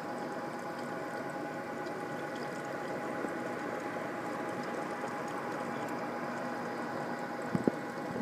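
Saltwater nano reef tank's filtration running: pump and protein skimmer hum with a steady whine over constant bubbling and trickling water. Two light knocks near the end.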